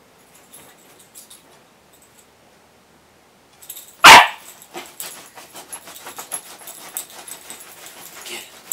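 A puppy gives one short, loud bark about four seconds in while playing, then scrabbles and rustles about on the bedding.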